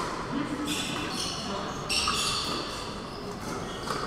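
Pickleball doubles rally on an indoor court: short high-pitched squeaks, typical of sneakers on the court surface, over the reverberant hum of a large hall.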